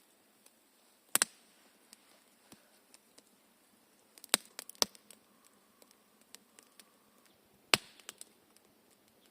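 Wood being chopped: a few sharp, irregular strikes, one about a second in, a quick cluster around four to five seconds, and another near the end.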